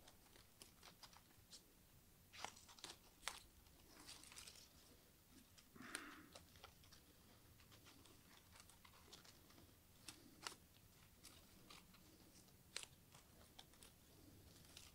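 Faint, irregular snips of hand scissors cutting through folded paper, with light paper rustling between the cuts.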